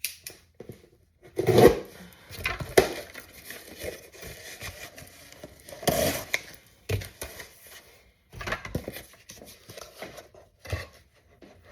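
Irregular workbench handling noises: rustling, scraping and a few sharp knocks as a piece of material is cut in half and fitted over a damaged propeller.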